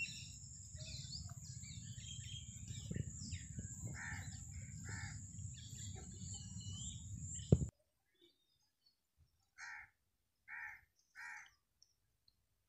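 Crows cawing: a couple of short caws over outdoor background noise with small birds chirping, then, after the background cuts off abruptly about eight seconds in, three more short caws about a second apart in near silence.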